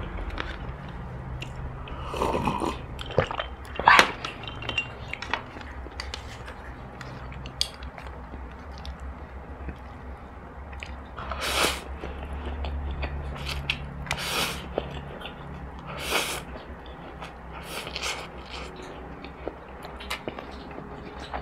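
Close-miked eating: chewing and slurping instant noodles, with chopsticks clicking against the dish. A sharp click about four seconds in is the loudest sound, and several short slurps come in the second half.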